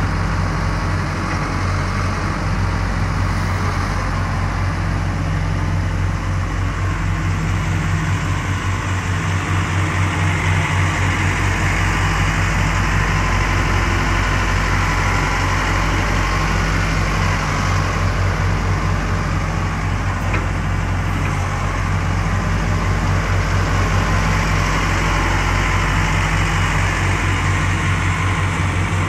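Case Poclain 688B crawler excavator's diesel engine running steadily while the machine is worked: the upper structure slews and the boom and bucket move.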